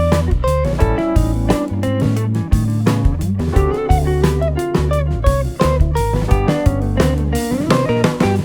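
Background music: guitar with bass and drums, a steady beat.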